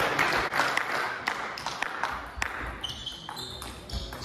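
Table tennis ball clicking off the bats and table in a rally, a string of sharp ticks. From about three seconds in, short high squeaks of sneakers on the hall floor join them.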